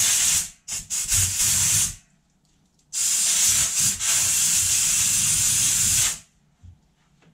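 Compressed-air blow gun blowing fine metal shavings off a radius-arm bush reamer. There is a short blast, then a broken second one, then a steady blast of about three seconds that cuts off suddenly.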